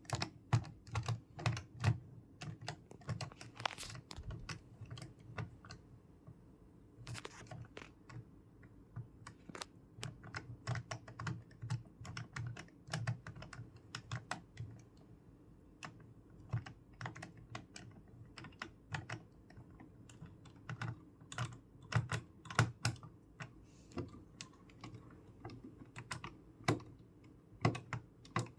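Irregular light clicks and taps on hard plastic, some in quick clusters and some single, with short quiet gaps between runs.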